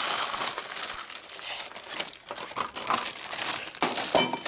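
Plastic bag crinkling and a plastic parts box rattling as hands sort small steel bolts and washers, with light metal clinks; about four seconds in, one part clinks sharply and rings briefly.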